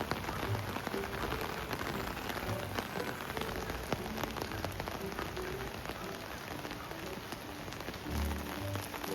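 Rain falling steadily, a dense patter of drops.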